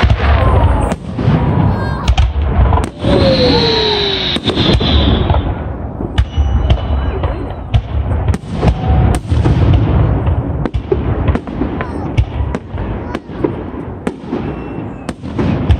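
Aerial firework shells bursting in quick succession: a string of loud bangs and crackles, with a high whistle about three seconds in lasting a couple of seconds.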